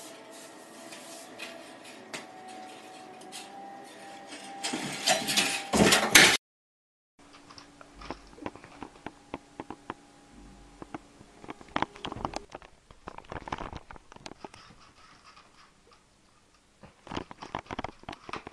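Cats clambering on curtains and a curtain rod: fabric rustling, scraping and claw clicks. The loudest part is a scrabbling burst around five to six seconds in. After a second of silence at a cut, quieter scattered rustles and clicks follow.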